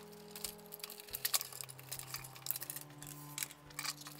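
Quiet background music with held notes, over many scattered sharp clicks and light clinks of a CRT monitor's circuit-board chassis being handled and pulled out.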